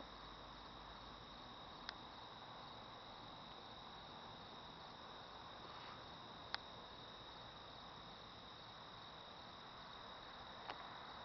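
Crickets trilling faintly and steadily in a night field over a low hiss, with a few faint clicks.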